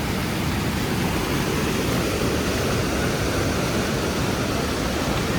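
Fast-flowing mountain river rushing over stones: a steady, even roar of water with no break.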